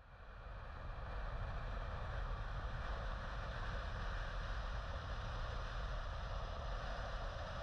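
A car driving at speed: steady wind rush and road noise, fading in over about the first second.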